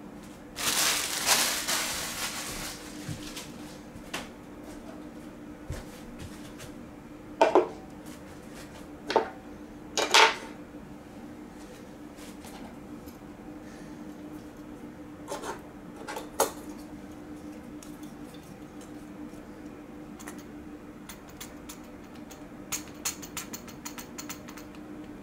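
Handling of a plastic airliner desk model and its packaging: a crinkle of plastic wrap near the start, then scattered clicks and knocks of hard plastic parts against the table, and a quick run of small clicks near the end as the wing is fitted to the fuselage. A faint steady hum underneath.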